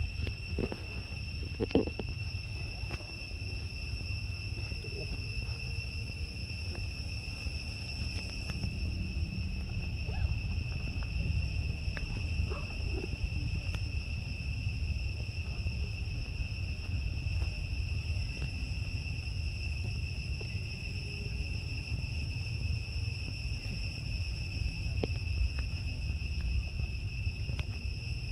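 Steady insect drone, high and unbroken, over a low rumble, with a few faint scattered clicks.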